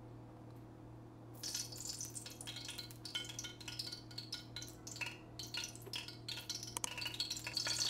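Cooking oil sizzling and crackling in a preheated pot, starting about a second and a half in, with small clinks of a glass bowl against the pot.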